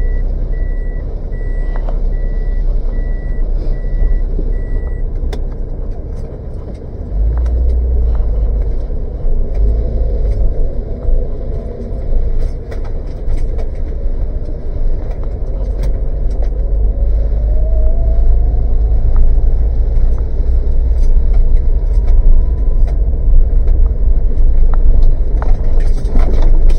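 Inside a Daihatsu car's cabin: the reversing warning beeps repeat for the first five seconds. Then the car pulls away and drives on, with a steady low engine and road rumble that grows louder and a whine that rises slowly as it gathers speed.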